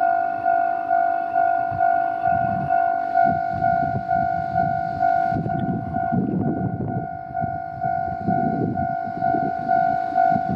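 Japanese railroad crossing alarm bell ringing its steady electronic 'kan-kan' ding, about two strokes a second. Under it a train's low rumble comes and goes, heaviest in the second half.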